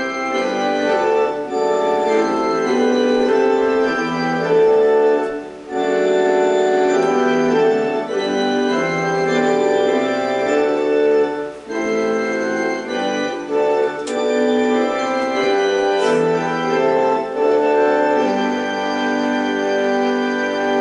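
Organ playing sustained chords in phrases with brief breaks between them, then stopping.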